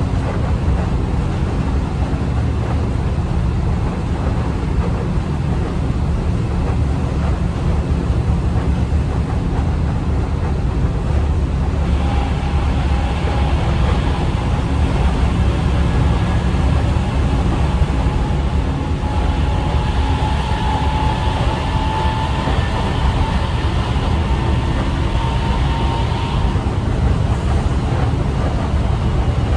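Berlin S-Bahn Class 480 electric train heard from inside the passenger car while running: a steady, loud rumble of wheels on the track. About twelve seconds in, the traction motor whine comes in and slowly rises in pitch, then fades near the end.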